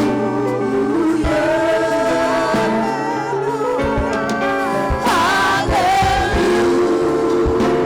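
Gospel music: voices singing with vibrato over sustained instrumental notes, with low drum beats.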